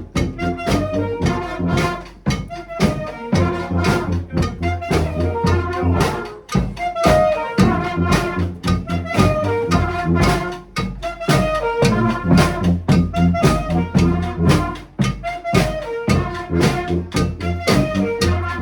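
Community street brass band playing a tune: horns over a steady drum beat and a low bass line.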